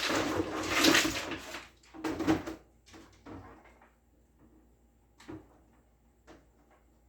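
Painter's tape being pulled off the roll: a long rasping strip, then a second shorter one, followed by a few light taps.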